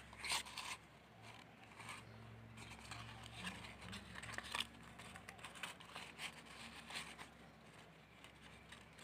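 Paper banknotes and a handmade paper wallet rustling and crinkling as the notes are folded and pushed into it: a run of faint, short, irregular rustles, the loudest just after the start.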